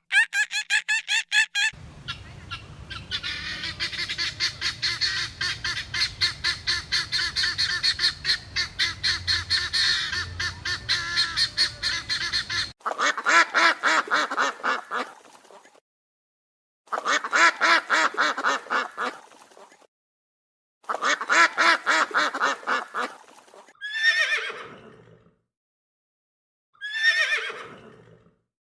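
Domestic fowl calling in rapid, pulsed honking and cackling: one long stretch, then three shorter separate bursts. Near the end come two calls that slide steeply down in pitch.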